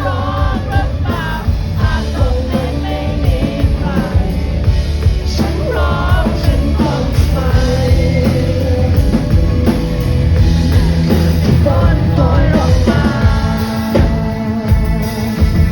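Rock band playing live with a sung lead vocal over drums and guitars, heard through the concert sound system.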